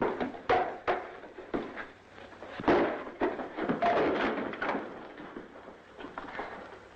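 A run of irregular thumps and knocks, a dozen or so, with a rougher scuffling stretch between about three and five seconds in, dying away near the end.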